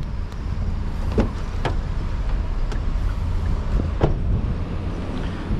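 Steady low rumble of a car idling, with a few sharp clicks, about a second in, again half a second later, and near four seconds.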